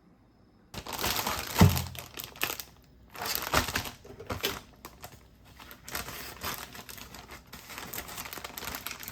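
Plastic packaging crinkling and rustling as it is handled, in irregular handfuls with short pauses, starting under a second in, with one thump about one and a half seconds in.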